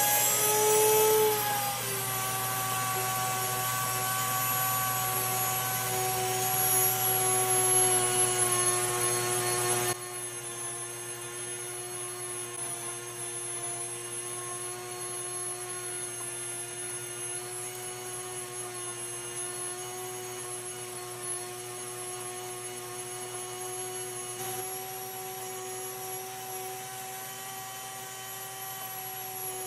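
NutriMill Classic electric grain mill running at full speed and grinding whole wheat berries into flour: a loud, steady motor whine with a hiss over it. It turns suddenly quieter about ten seconds in.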